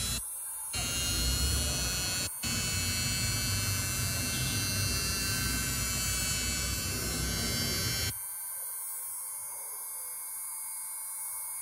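Small handheld electric grinder fitted with sandpaper, running with a steady high whine while grinding down the sides of a brass Zippo lighter hinge to narrow it for the case. It is quieter and thinner from about eight seconds in.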